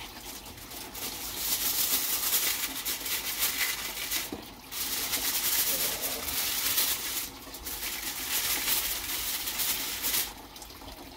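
Aluminium foil crinkling and rustling as it is folded and pressed around a pork belly. It comes in three stretches with brief pauses and quietens about ten seconds in.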